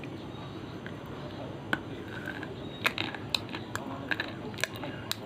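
Slate pencil being bitten and chewed: sharp, dry crunches, the first about a second and a half in, then coming in a quick run of about eight toward the end.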